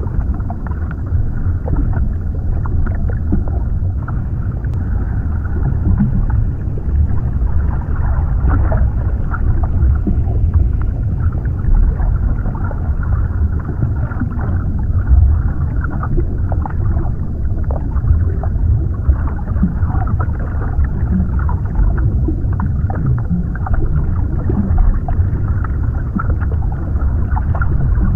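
Underwater ambience: a steady, muffled low rumble of water, dotted with small bubbling gurgles.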